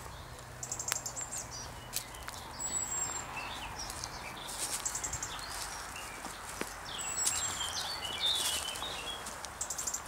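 Footsteps on a leaf-littered woodland path, with small birds singing and chirping, short trills and calls that are busiest in the second half.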